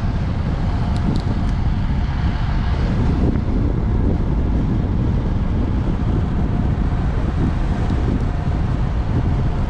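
Wind buffeting the microphone of a camera on a moving road bike: a steady, loud rumbling rush, with a faint thin steady whine underneath.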